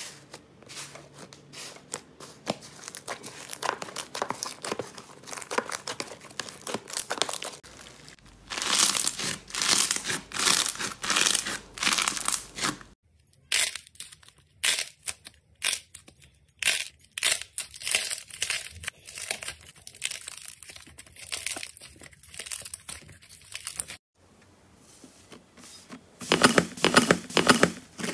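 Hands pressing, squeezing and pulling slime, giving dense crackling, crinkling and squishing sounds. The sound breaks off briefly about thirteen seconds in and again at about twenty-four seconds, where the clips change.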